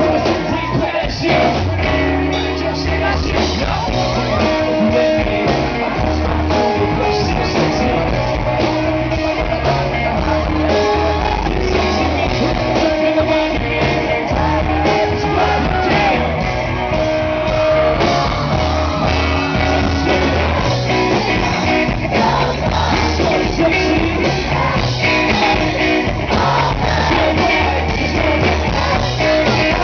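Live band playing through a loud stage PA: drums, electric guitar and keyboards under a lead vocalist singing and rapping into a handheld microphone, heard from the crowd in front of the stage.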